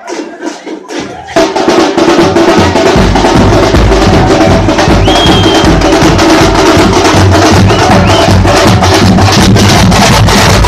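A group of drums breaks into loud, fast, continuous beating about a second in, after a few sparser strokes.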